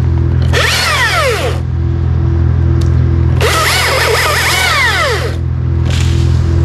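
A chainsaw cutting in two short bursts, about half a second in and again from about three and a half seconds. Its pitch falls away as each cut ends. A steady low hum runs underneath.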